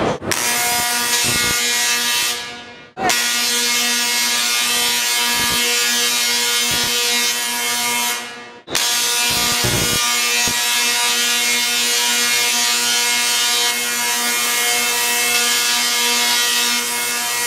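Tesla coil firing: the spark discharges make a steady, harsh electric buzz. It fades out briefly about 3 seconds in and again about 9 seconds in, then starts again each time.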